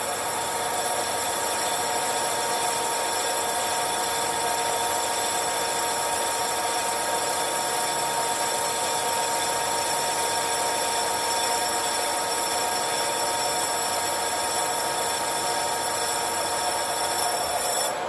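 Engine lathe turning a copper smokebox tube in a three-jaw chuck, with a lathe tool taking a cut in the tube to form a rabbet: a steady, loud whine of several fixed tones with a hiss over it. It stops abruptly near the end, when the cut finishes, leaving the lathe running more quietly.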